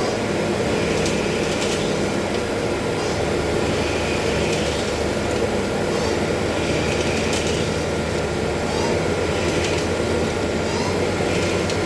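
Schaublin TM-65Y CNC lathe running while machining a steering rack piston: a steady mechanical hum with a hiss over it, broken by a few short clicks.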